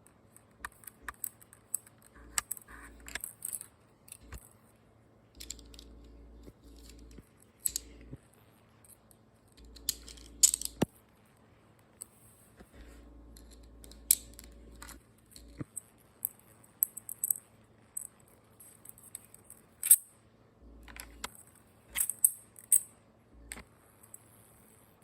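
3D-printed plastic pistol being handled and worked: irregular clicks, snaps and light rattles of hard plastic parts, the sharpest about ten and twenty seconds in.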